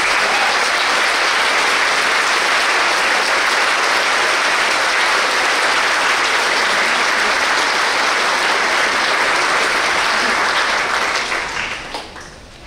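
Large audience applauding in a hall, a dense steady clapping that dies away about eleven seconds in.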